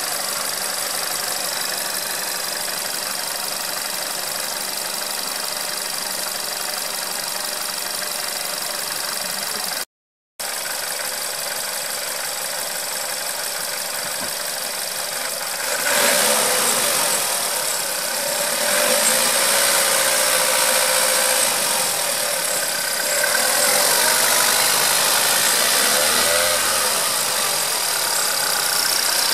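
Volkswagen Golf 6 1.4 TSI petrol engine idling with a whistle and a rattle, sounds the owner says it always makes after starting. It breaks off for a moment about ten seconds in, and from about sixteen seconds on it is louder and brighter as the engine is heard at closer range.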